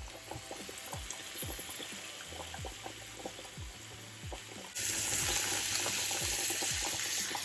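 Food sizzling as it fries in olive oil in a pan, a steady hiss with scattered crackling pops. The sizzle gets suddenly louder about five seconds in.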